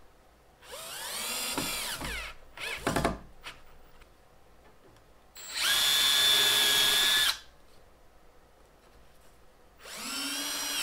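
Cordless drill with a Vix self-centering bit boring pilot holes through a drawer slide's mounting holes into wood, in short runs: a whine that rises and falls about a second in, a brief blip near three seconds, and a steady run about six to seven seconds in. Near the end a second, compact Festool cordless drill starts up to drive the slide's screw.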